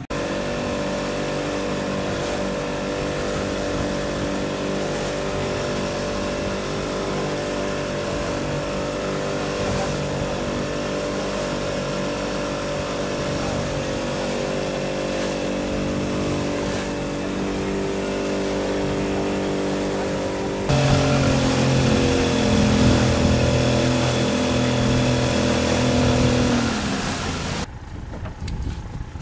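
Small boat's engine running at a steady speed under a hiss of wind and water. About two-thirds of the way through, the note changes abruptly to a louder, lower one. Near the end its pitch drops as it slows, and then it stops.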